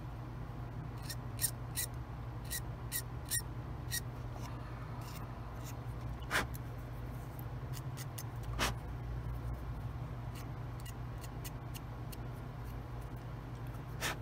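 Hobby knife blade trimming the edge off a small plastic model part: a run of light, sharp ticks, quick for the first few seconds and sparser after, with two louder clicks in the middle. A low steady hum runs underneath.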